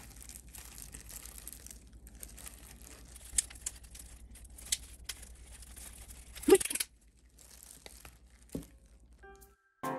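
Plastic crinkling and rustling from a disposable plastic glove and a squeezed plastic sauce pouch as raw beef is mixed by hand in a stainless steel bowl. There are scattered sharp crackles and one louder crackle about six and a half seconds in. Light music starts near the end.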